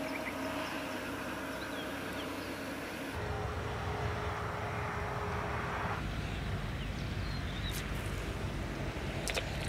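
Motorbike running along a road, its engine hum mixed with wind and road noise, changing abruptly about three and six seconds in.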